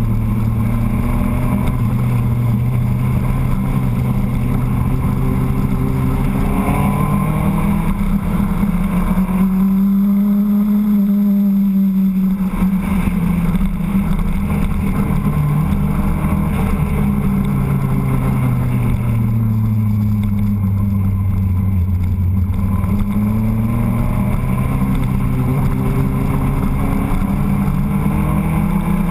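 Motorcycle engine running under way, its pitch rising and falling slowly as the rider accelerates and eases off through the bends, over a steady rush of wind and road noise.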